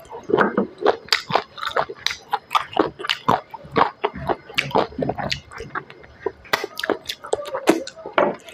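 Close-miked chewing of smoked chicken with perilla seeds and rice: a continuous run of quick wet smacks and clicks from the mouth.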